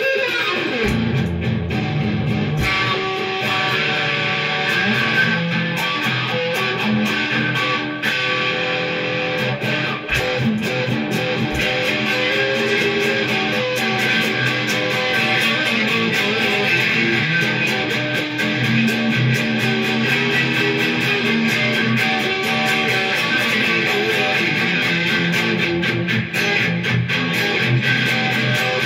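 Electric guitar played through a pedal and amplifier: a continuous run of notes and chords.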